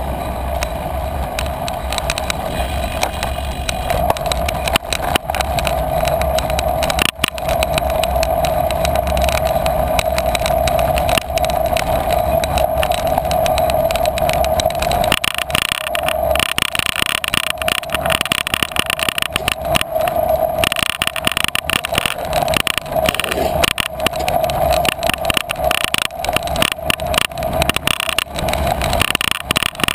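Bicycle riding over a bumpy grass and sand trail, heard through a handlebar-mounted action camera: constant rattling and knocking of the mount over the rough ground above a steady hum, growing rougher about halfway through.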